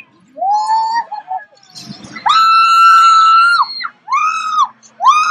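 A woman screaming in fright. A short high scream comes about half a second in, a long held scream from about two seconds to nearly four, and two short screams near the end.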